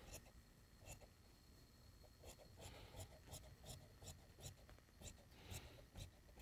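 Large tailor's shears cutting through suit-trouser fabric on a cutting table: a faint run of short, crisp snips, closer together in the middle, with light rubbing of cloth.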